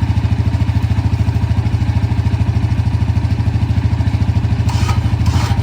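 Engine running steadily close by, with an even, fast low pulse, while a machine is inched back into position. A few short clatters near the end.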